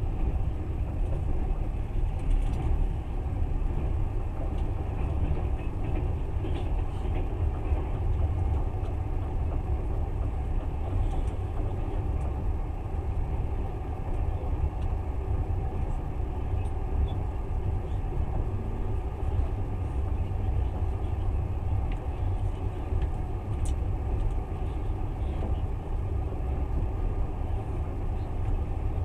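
Passenger train running steadily, heard from inside the carriage: a constant low rumble of wheels on rails, with a few faint clicks and rattles.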